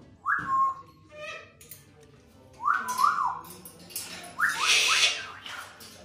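African grey parrot whistling in short, rising notes: one just after the start, two near the middle, and three quick ones near the end, the last set overlaid by a loud, raspy, hissing burst.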